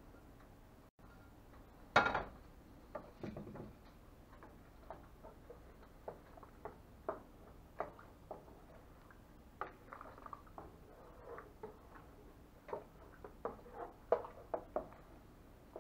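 A stirring utensil tapping and scraping against the side of a stainless steel stockpot in irregular clicks. A louder metal clank about two seconds in, as a saucepan is set down on the stove.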